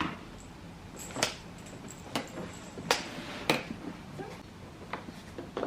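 Irregular sharp clicks and knocks, about six of them spread unevenly, from toddler toys being handled and tapped.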